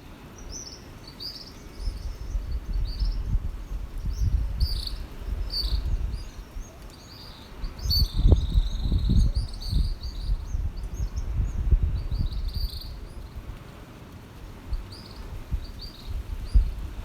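Many small birds chirping and twittering in short, repeated high calls, over an uneven low rumble that comes and goes and is the loudest sound in the stretch.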